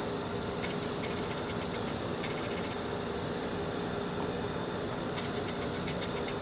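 Vacuum cleaner motor running steadily with a constant hum, drawing air through the machine to dry it out after it was cleaned with water, with a few faint clicks.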